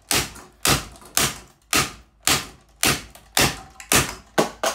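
A Lanson ceiling fan being knocked hard over and over: nine sharp, evenly spaced knocks, about two a second, each ringing briefly.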